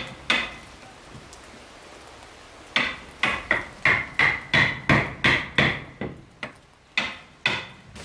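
Hammer striking wood in a steady run of about fourteen blows, roughly three a second, each with a short metallic ring. The run follows a single blow near the start and a pause of about two seconds, and the blows grow more spaced near the end.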